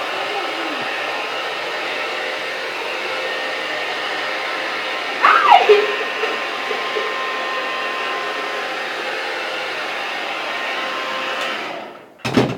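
Handheld hair dryer blowing steadily, switched off near the end so its sound dies away over about half a second, followed by a sharp click. About five seconds in, a short high squeal falls sharply in pitch above the dryer's noise.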